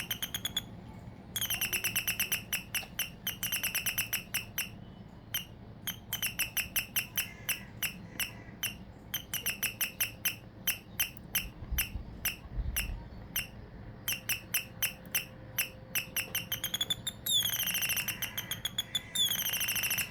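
Homemade electronic bird-sound doorbell circuit chirping through its small speaker: short, high, whistle-like electronic chirps in quick trains. The spacing changes, from dense runs to about three to five chirps a second, with a few longer rising sweeps near the end, as the speed setting varies.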